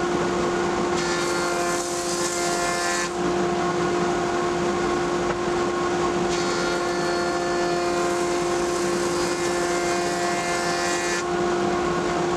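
Surface planer (jointer) running with a steady whine from its spinning cutterhead. The cutting noise rises as a utile board is fed over the knives, about a second in and again from about six seconds in until near the end.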